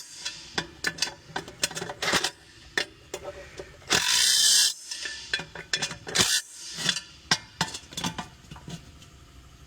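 Hand tools working the bolts of a three-piece racing wheel: a run of sharp metal clicks and scrapes, with two short rasping bursts about four and six seconds in.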